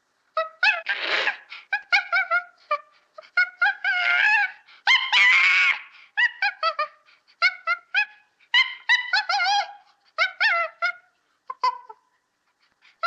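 Monkey calling: quick runs of short, high-pitched chattering calls, broken by two longer screeches, one about a second in and another around five seconds in.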